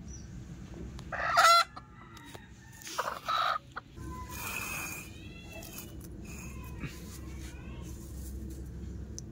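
Chickens calling: a loud call about a second in and another about three seconds in, then softer short calls that rise and fall, repeated every half second or so.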